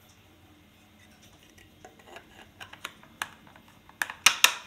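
Pieces of a 3D-printed plastic submarine model being handled: scattered light clicks and taps, then three sharp plastic clacks about four seconds in.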